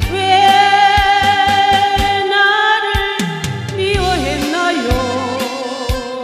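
A woman singing a Korean song into a microphone over a backing track with a steady beat, holding long notes that waver and then glide down about halfway through.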